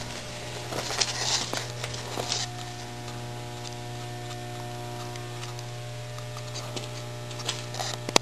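A steady electrical hum, with light rustling and a few faint clicks in the first couple of seconds.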